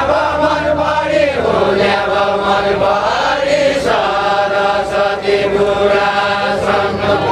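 A group of voices singing a Deuda folk verse together in unison, holding long drawn-out notes that slide from one pitch to the next every few seconds.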